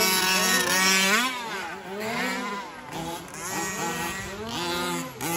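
Several 1/5-scale remote-control racing trucks with small two-stroke petrol engines revving as they race, their pitches overlapping and rising and falling again and again with the throttle.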